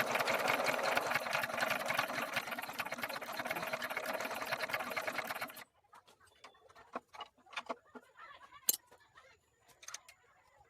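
Small single-cylinder diesel engine running with a fast, even clatter that cuts off abruptly about five and a half seconds in. Then a few faint clicks and taps.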